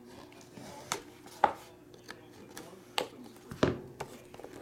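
A folding knife slitting the foil seal stickers on a cardboard trading-card box, then the box being handled and its lid lifted off: several sharp clicks and taps, the loudest about a second and a half in.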